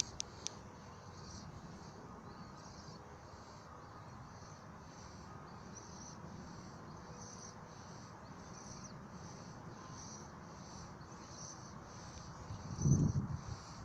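Insects chirping in a steady high rhythm, about two pulses a second, with a brief low thump near the end.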